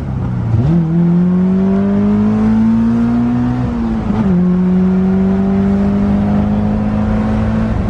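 Caterham 310S four-cylinder engine heard from the open cockpit, driving along: the engine note climbs slowly for about three seconds, dips at a gear change, then holds fairly steady before dipping again near the end.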